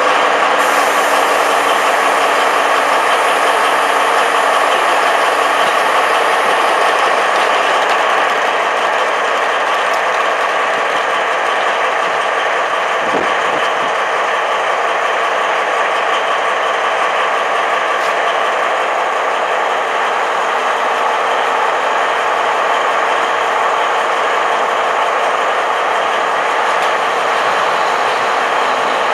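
Diesel engine of a DB class 218 diesel-hydraulic locomotive running steadily, with a constant layered whine, and a brief low thump about halfway through.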